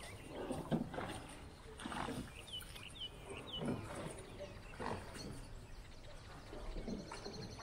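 A dog making about five low, throaty grunting vocalisations a second or two apart. Three short rising bird chirps come in the middle, and a quick high trill comes near the end.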